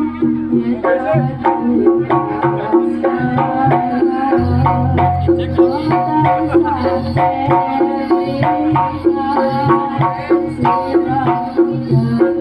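Jaranan gamelan music played live: kendang hand drums beat a busy, steady rhythm over ringing pitched gamelan instruments.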